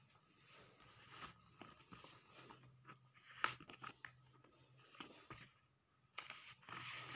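Paper comic magazines rustling and pages flipping as they are handled, with a few sharp paper snaps, the loudest about three and a half seconds in.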